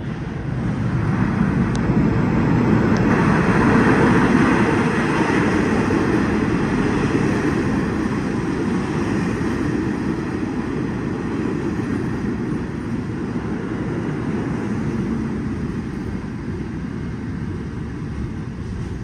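R68A subway train pulling into an underground station: the rumble of steel wheels on rail swells as it comes out of the tunnel, is loudest about four seconds in, then eases off slowly as the train slows along the platform.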